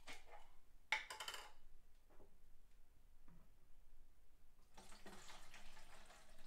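A jar lid is twisted off about a second in, with a few light clinks of glass. Near the end, activated EM, a liquid ferment, is poured through a plastic funnel into a plastic gallon jug for about a second and a half.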